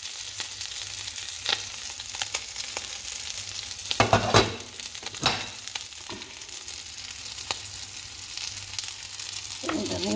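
A whole prawn sizzling steadily in oil in a nonstick frying pan, with a few clicks and scrapes of a metal fork against the pan, the loudest about four seconds in.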